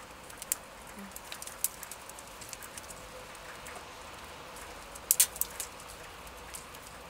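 Eurasian red squirrel gnawing a nut held in its paws: scattered sharp crunching clicks of the shell breaking, with a quick cluster of louder cracks about five seconds in.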